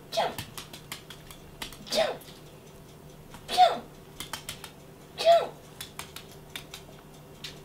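Small fluffy white dog giving four short yips that fall in pitch, about one and a half seconds apart, while it begs on its hind legs. Light sharp clicks on the hardwood floor come between the yips.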